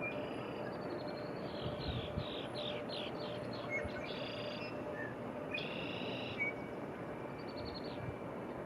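Small birds calling: a quick run of about eight falling notes, then two short, longer calls and a faint trill near the end, over a steady low rush of wind.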